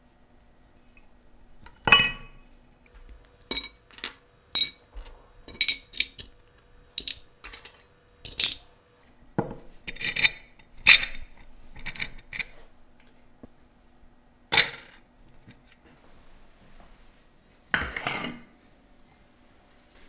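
Small metal lighter parts and tools clinking and tapping on a workbench: an irregular run of about fifteen sharp metallic clinks, some ringing briefly, with a short scrape near the end.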